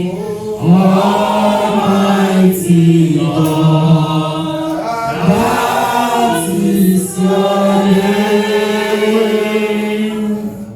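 Church congregation singing together in long, held phrases, a worship song in unison.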